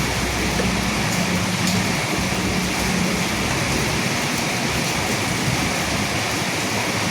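Steady rain falling, with a low rumble, the tail of thunder, dying away in the first second or so.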